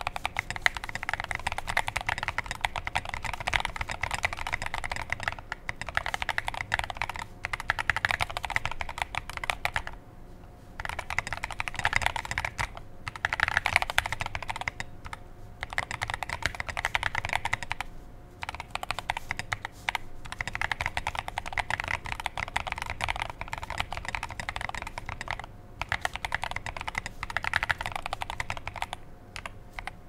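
Steady two-handed typing on a mechanical keyboard fitted with lubed, filmed Boba U4t tactile switches, SA-profile keycaps and a POM plate. A dense run of key clacks is broken by a few short pauses.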